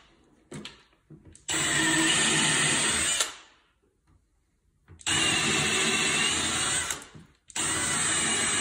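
Cordless drill boring into wood with a mortise bit, running in three bursts of about two seconds each with short pauses between, as it cuts a recess about half an inch deep for a fastener plate.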